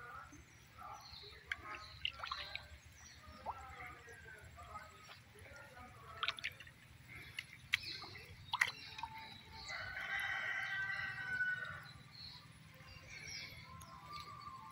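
Water dripping and splashing off a wet fishing net as it is handled in waist-deep water, with a few sharp splashes around six to nine seconds in. A rooster crows once, about ten seconds in, for more than a second, amid short bird chirps.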